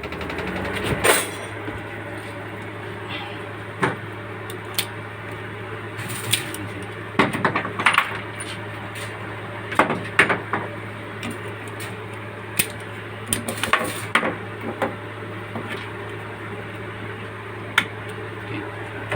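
Scattered metallic clinks and knocks of tools and battery terminals being handled during a car battery swap, over a steady low hum.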